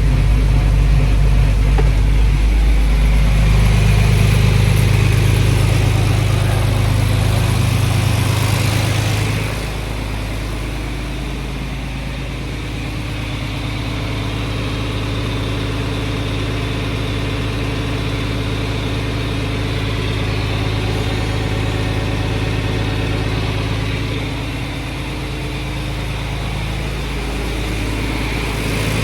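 John Deere 2940 tractor's diesel engine running steadily as its rear hydraulic remotes are pressure-tested with the lever worked; the engine is louder for the first ten seconds, then its note drops and it runs on steady.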